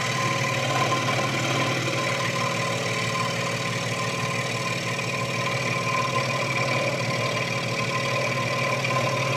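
Electric benchtop scroll saw running steadily, its motor driving the blade up and down at a set speed, giving a steady hum with a higher whine over it.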